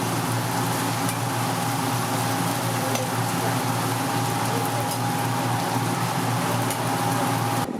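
Hotteok frying in margarine on a flat griddle: a steady sizzle, with a steady hum underneath. The sound cuts off suddenly near the end.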